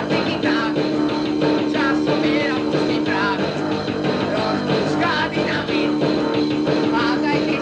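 Punk rock band playing an instrumental stretch of a song, with sustained notes underneath and gliding higher notes over the top. The recording is lo-fi, made on a dictaphone.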